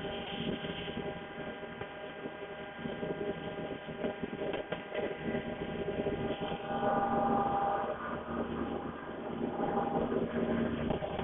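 CNC machine running, its motors giving a steady whine in several tones over a rattling noise; a louder, higher whine joins about seven seconds in.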